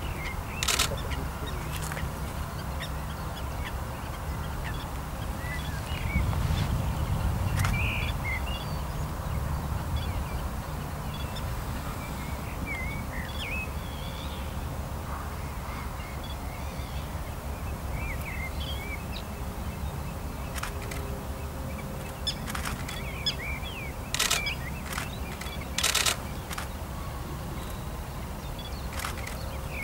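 Wetland ambience: scattered short bird calls over a low rumble of wind or handling noise that swells for a few seconds about six seconds in. Several sharp clicks come near the start and again in the last third.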